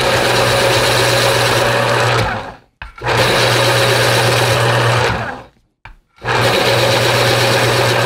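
School Smart vertical electric pencil sharpener running and grinding a pencil, three runs of about two and a half seconds each with short pauses between. Each run cuts off once the point is sharp, as the blades disengage automatically.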